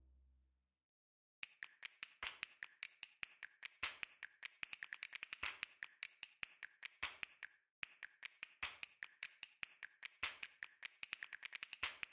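Faint, rapid, irregular sharp taps and knocks in an echoing gym: a basketball bouncing and shoes striking the hardwood court during play, about five hits a second.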